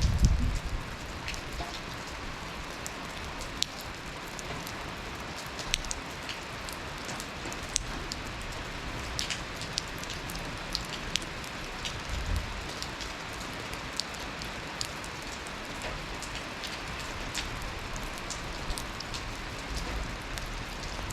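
Steady slow rain falling in a yard, an even hiss dotted with many sharp ticks of single drops. A brief low rumble sounds at the very start.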